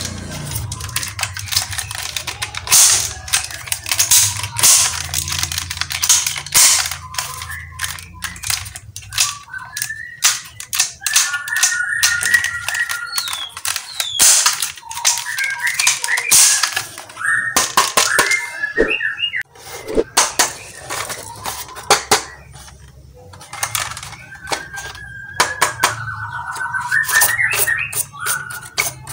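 Plastic toy rifles clicking and rattling in quick bursts as they are worked and fired, with short chirping, warbling tones several times, mostly in the second half.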